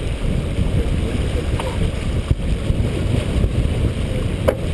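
Steady wind rumble on the microphone and water rushing past the hull of a sailboat under way, with a couple of sharp clicks near the end.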